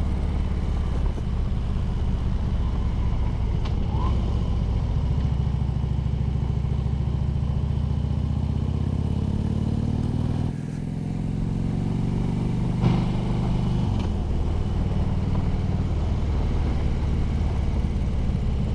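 Harley-Davidson Ultra Limited's V-twin engine running under way, its pitch rising and falling with the throttle through a run of turns. The note climbs slowly, drops briefly about halfway through, then pulls up again.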